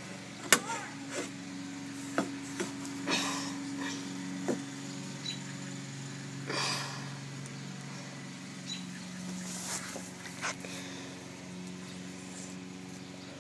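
Handling noise: scattered sharp clicks and knocks as a hand moves a Nerf blaster and the camera against a plastic play structure, with two short rustles, over a steady low hum.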